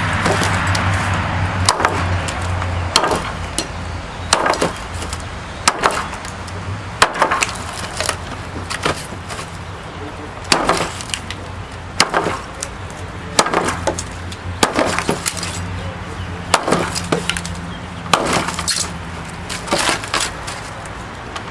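Large chopping knife striking a log again and again, roughly one hit a second and now and then two close together, each a sharp woody chop biting into the wood.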